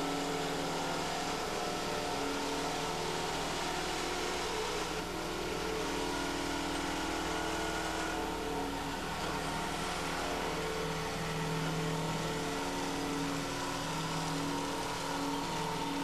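Band saw with an Amada PROTECTOR blade cutting structural steel: a steady machine drone with several held tones that waver slightly in strength. The workpiece is loosely clamped and vibrating, yet the blade keeps cutting without stalling.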